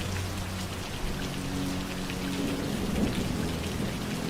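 Steady rain falling, with a low rumble of thunder about three seconds in and faint low held tones underneath.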